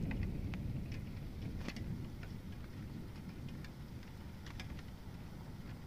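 Rain falling, with scattered sharp ticks of large raindrops striking close to the microphone; no hailstones bouncing yet. Under it a low rumble fades away over the first second or two.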